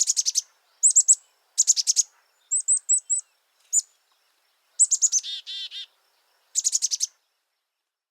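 A small songbird calling: quick clusters of high, sharp chirps about every second, and once, about five seconds in, a run of lower, buzzier notes right after the chirps.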